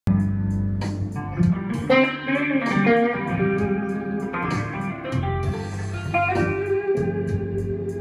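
Les Paul-style electric guitar, amplified, playing a blues line of single notes over a steady rhythm and a low bass.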